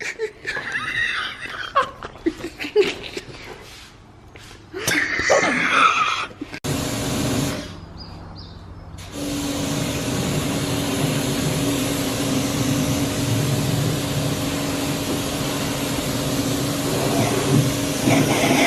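Girls laughing and giggling in bursts, then after a sudden cut a steady machine drone with a constant low hum that carries on to the end.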